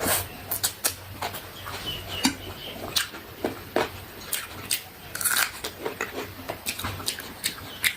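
Close-miked eating of chicken chow mein: chewing and biting, with irregular wet smacks and clicks several times a second.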